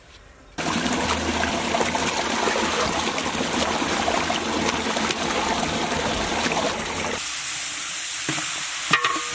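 A loud rushing, crackling noise, then from about seven seconds in a high hiss of frying as chopped raw chicken is tipped into a large hot cooking pot, with a few knocks near the end.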